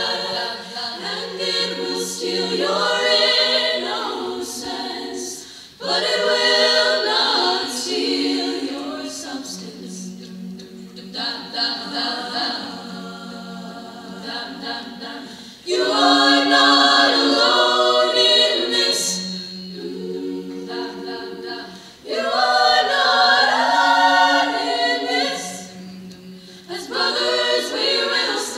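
Young women's a cappella choir singing in harmony, in phrases that swell in and fade away, with a low note held underneath in stretches.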